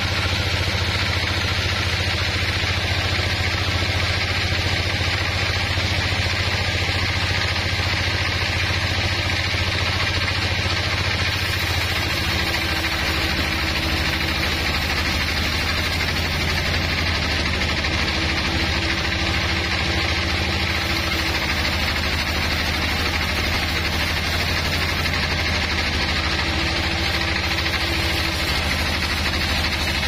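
Band sawmill running, its blade cutting lengthwise through a large wooden slab: a steady low machine hum under a constant noisy sawing sound. The hum shifts slightly about twelve seconds in.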